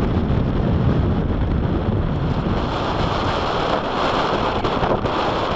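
Strong gusty wind buffeting the microphone: a steady low rush, with a brighter hiss coming in about halfway through.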